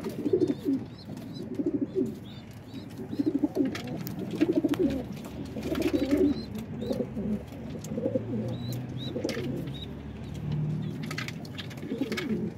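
Domestic pigeons cooing in a loft, one pulsing coo after another about every second, with a few short knocks between them.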